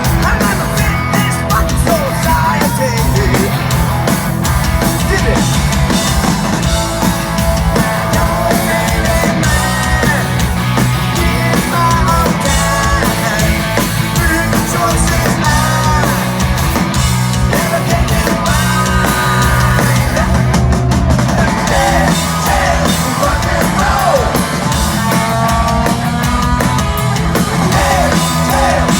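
Live hard rock band playing loud, with drum kit, electric guitars and vocals.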